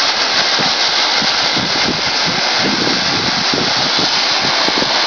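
Ground fountain firework spraying a tall jet of sparks, with a loud, steady hiss.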